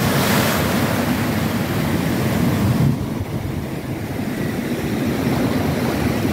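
Ocean surf breaking and splashing around old pier pilings, then washing back as foam. The splash is strongest at the start and eases about three seconds in.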